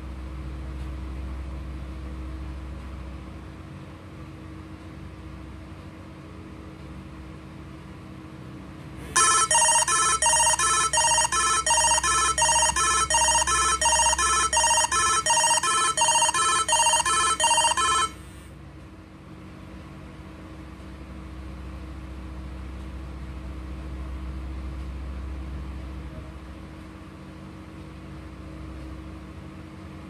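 BlackBerry Z10 playing its incoming-call ringtone: a loud, fast, evenly repeating pattern of bright electronic notes, about two to three a second. It starts about nine seconds in and stops suddenly about nine seconds later. A low steady hum runs underneath.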